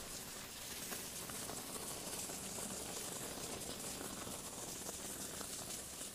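Polyurethane spray foam hissing and sputtering steadily from the can as it is pumped into gaps between the logs.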